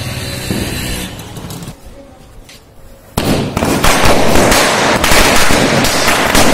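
A string of red chain firecrackers (saravedi) catches about three seconds in and goes off at once in a fast, unbroken run of loud cracks.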